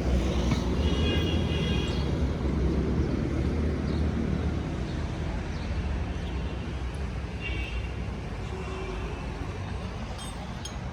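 Low rumble of a passing motor vehicle, loudest at first and slowly fading, with short high-pitched tones about a second in and again near the eight-second mark.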